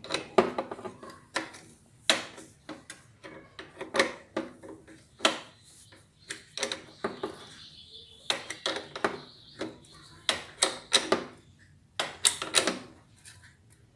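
Wrench clinking and clicking against a motorcycle muffler bracket and bolt as the bolt is tightened by hand: irregular sharp metallic knocks, some ringing briefly.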